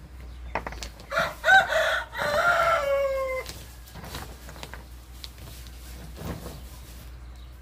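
A rooster crows once, starting about a second in: a call of just over two seconds that ends in a long drawn-out note, slowly falling.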